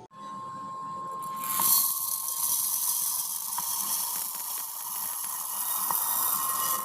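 Small electric kitchen motor, such as a mixer grinder, running steadily: it starts suddenly and holds a steady whine over a hiss that grows louder after about a second and a half.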